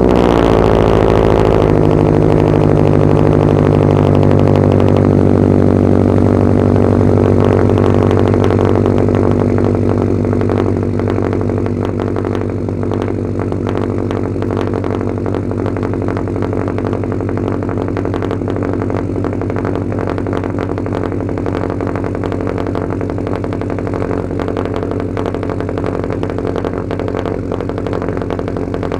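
Subaru WRX STI's turbocharged flat-four boxer engine idling with its characteristic rumble. The revs drop a little about two seconds in, and it settles to a slightly quieter steady idle around ten seconds in.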